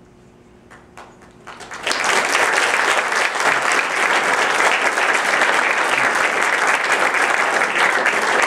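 An audience applauding: a few scattered claps at first, swelling into steady, full clapping about two seconds in.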